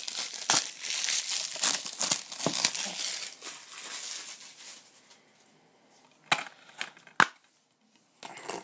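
Cellophane shrink-wrap crinkling and tearing as it is peeled off a plastic Blu-ray case for about four seconds. Then a few sharp plastic clicks as the case is handled and snapped open.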